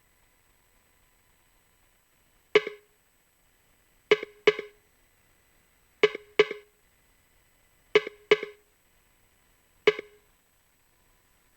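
Short pitched electronic hits from Maschine, eight in a sparse, repeating rhythm, mostly in pairs about two seconds apart, each dying away quickly.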